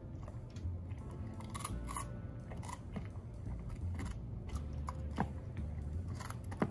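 A Belgian Malinois chewing raw celery: a run of crisp, irregular crunches as she bites the stalks.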